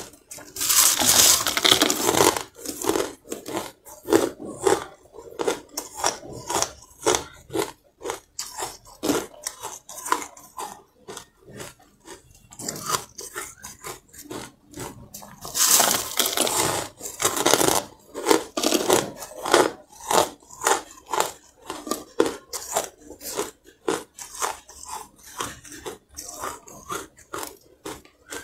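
Close crunching of carbonated ice being bitten and chewed. There are two loud, dense bites, about a second in and again about halfway through. Each is followed by a run of short, crisp chewing crunches, several a second.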